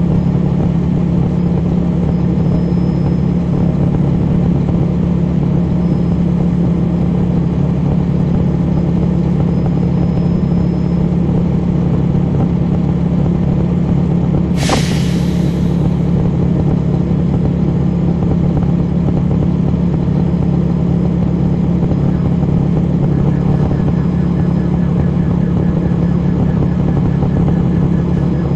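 Cummins ISL9 diesel engine of a NABI 40-SFW transit bus running at a steady speed, heard from the rear of the cabin. About halfway through comes one short, sharp hiss of released air.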